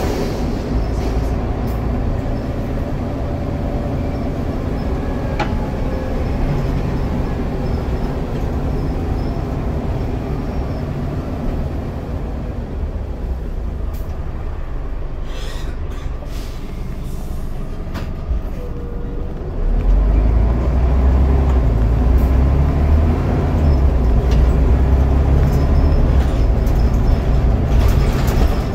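Scania DC9 9.0-litre Euro 3 diesel of a double-decker bus, heard from inside the lower saloon, running under way with road and body noise. A quieter stretch in the middle carries a few short hisses, then about twenty seconds in the engine note grows louder and deeper as it pulls harder.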